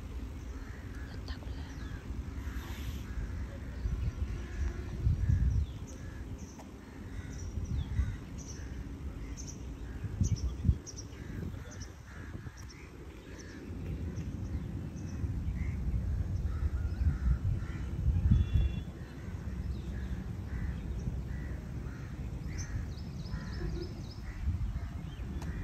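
Outdoor birdsong: birds calling throughout, with repeated caws and short high chirps. Underneath is a low rumble that swells and fades, with a few louder peaks.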